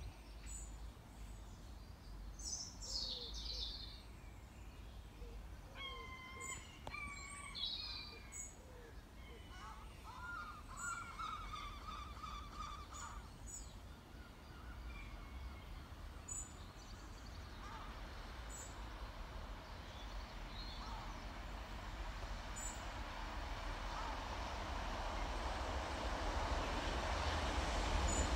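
Birds chirping and calling in short twittering phrases during the first half. From about halfway, the low rumble of an approaching train grows steadily louder toward the end.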